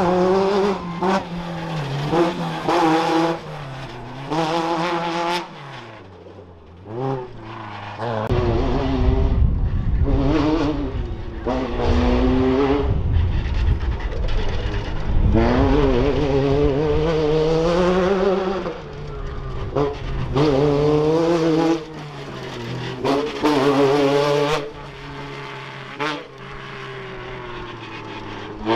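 Class 10 off-road race cars running hard, their engines revving up and falling back again and again as they accelerate and lift. From about eight seconds in, a heavy low rumble joins the engines.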